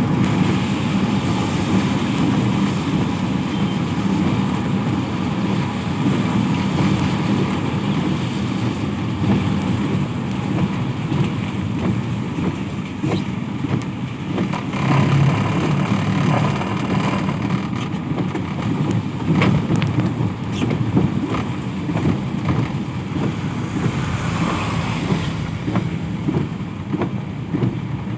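Road traffic: vehicles passing steadily on a rain-wet road, with scattered sharp ticks.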